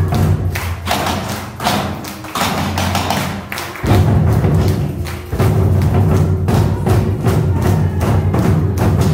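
Janggu drums mounted upright on stands, struck with sticks by a group in unison over a recorded backing track with a steady beat. About two seconds in the bass drops away for a short break, and the full music and drumming come back just before four seconds.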